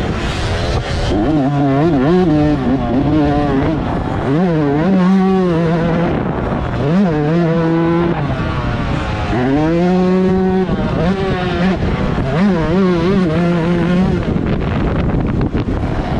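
125cc two-stroke motocross bike engine under racing throttle: it revs up and drops back several times, with a few held stretches at high revs.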